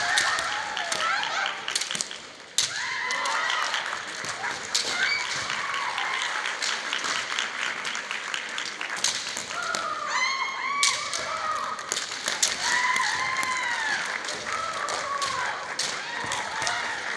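Kendo sparring: repeated high-pitched kiai shouts from female fencers, over the clack of bamboo shinai striking each other and the armour, and the thump of stamping feet on a wooden gym floor.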